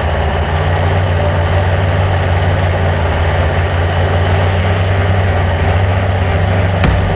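Blade 350 QX2 quadcopter's electric motors and carbon propellers running steadily, a loud low hum with a whirring rush above it.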